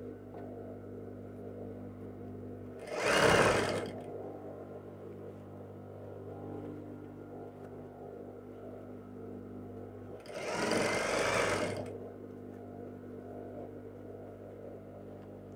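Juki industrial sewing machine stitching in two short runs, the first about three seconds in and the second about ten seconds in, each lasting a second or so. A steady low hum carries on between the runs.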